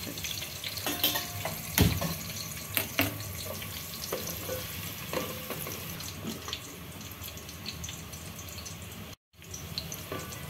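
Sliced onions frying in oil in a pot: a steady sizzle, with a wooden spatula knocking and scraping against the pot several times as they are stirred. The sound cuts out for a moment near the end.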